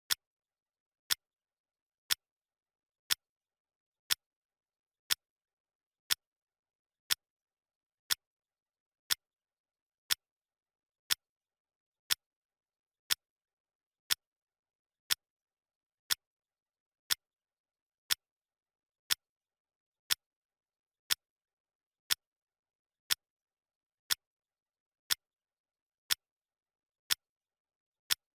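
Clock ticking sound effect: a single sharp tick once a second, evenly spaced, with silence between ticks, marking each second of the countdown.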